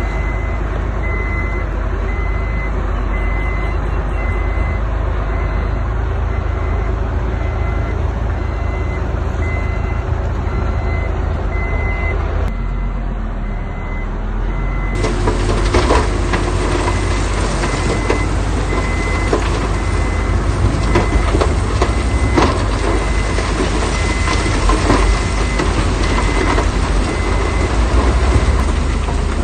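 Heavy diesel truck engine running with a reversing alarm beeping about once a second. About halfway through the sound changes to a louder, busier stretch of clattering knocks over the engine and beeping.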